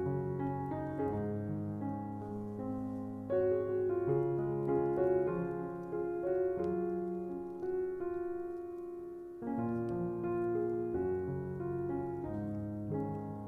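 Background piano music, with held notes and chords changing every half second or so.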